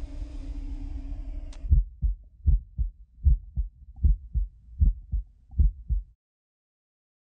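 A heartbeat thudding in slow double beats, about one lub-dub every 0.8 seconds. It comes in after a hiss with a low drone that ends about a second and a half in, and it stops dead about six seconds in.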